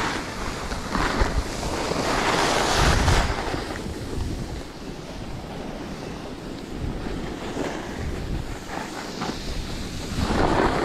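Wind rushing over the microphone and skis hissing over snow during a downhill ski run. The rush swells about two to three seconds in and again near the end.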